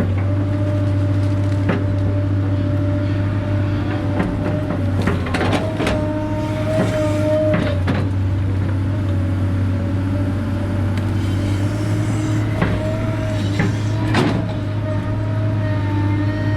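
Excavator running while digging: a steady engine drone with a higher whine that swells now and then, and scattered knocks and clanks.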